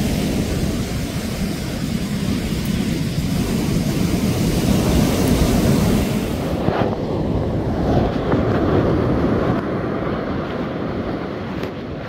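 Wind buffeting the microphone over the steady rumble of breaking surf. About seven seconds in the hiss drops away and the sound turns duller.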